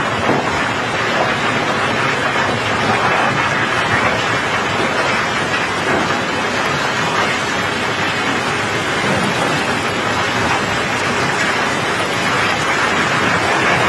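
Steady rain hissing on a wet steel barge deck, mixed with a continuous rushing of cobblestones and gravel sliding down the pile.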